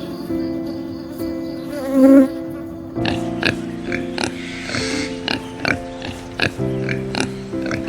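Background music of sustained chords, with a steady percussive beat coming in about three seconds in. A brief, louder wavering sound stands out about two seconds in.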